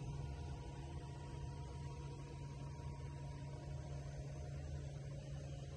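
A steady low hum with faint sustained tones above it.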